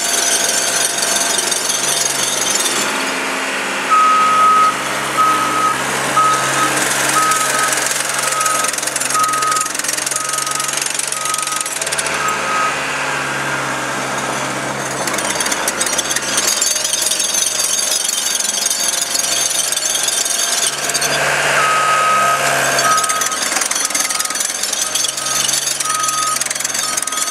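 Cat 277B compact track loader's diesel engine running as the machine drives and turns. Its back-up alarm beeps at a steady pace while it reverses, first from about four seconds in for roughly nine seconds, then again near the end.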